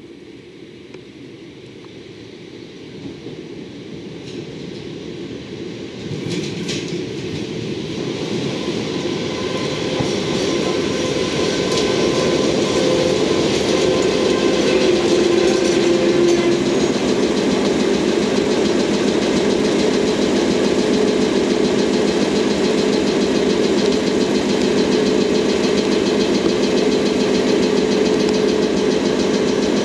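JNR Class DE10 diesel-hydraulic locomotive's V12 diesel engine running as the locomotive moves slowly past at close range. Its steady engine note grows louder over the first ten seconds or so, then holds, with some wheel clatter on the rails.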